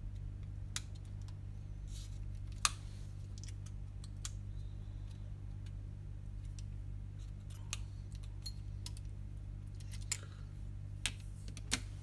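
Scattered small clicks and taps of a screwdriver and small metal parts as an iPhone 7 is taken apart by hand, the sharpest click a little over two seconds in. A steady low electrical hum runs underneath.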